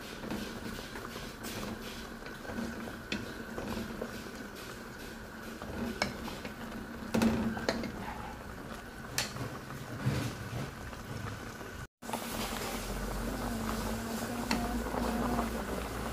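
Pot of fish and bok choy soup simmering at a steady bubble, while a wooden spatula stirs it and knocks against the metal pot a few times. The knocks fall between the middle of the stretch and about two-thirds through.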